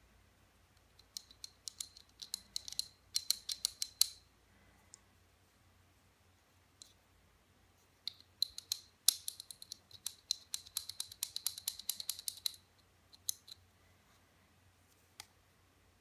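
Beretta 92FS pistol and its parts being handled and cleaned, giving rapid light clicks and scrapes. There is a burst about a second in and a longer one about eight seconds in, with only a faint background between.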